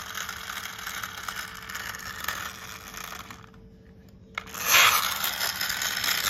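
Plastic toy car's wheels rolling and scraping on a hard stone floor as it is pushed back and forth, with a rattle from its wheels and gearbox. It goes quiet for about a second as the car is lifted, then scrapes louder when it is set down and pushed again.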